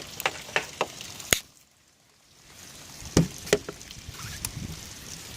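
A series of sharp knocks and clatters from handling things at a camper's storage compartment, likely the hose being pulled out. It drops to near silence for about a second, a second and a half in, then the knocks resume.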